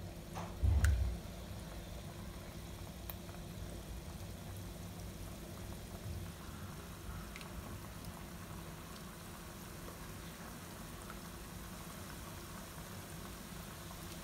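Pieces of shankarpali dough frying in hot oil in a pan: a steady bubbling sizzle as they are dropped in. A dull low thump about a second in.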